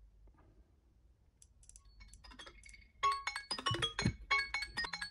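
Several smartphone alarm tones ringing at once as melodic, chime-like notes. A faint one starts about a second and a half in, and more join loudly and overlap about three seconds in.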